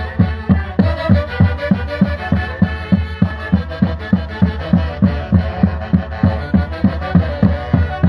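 Live Andean Santiago dance music from a saxophone band: saxophones carry the melody over a steady bass-drum beat of about three to four strokes a second.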